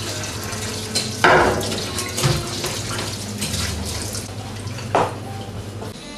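Kitchen tap running into a stainless-steel sink while things are rinsed by hand, with a few short clatters and splashes along the way.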